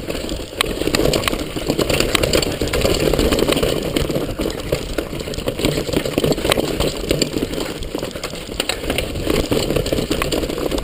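Downhill mountain bike rolling fast over a rocky trail: tyres crunching over stones and roots with a continuous rough rumble, the bike's chain and suspension clattering with many sharp knocks as it hits the bumps.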